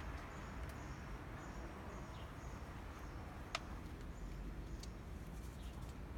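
Outdoor ambience: a steady low background rumble with faint high chirping that repeats throughout, and a single sharp click about three and a half seconds in.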